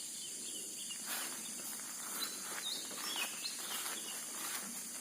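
Outdoor ambience: a steady high-pitched insect drone with short, scattered bird chirps and a few faint knocks.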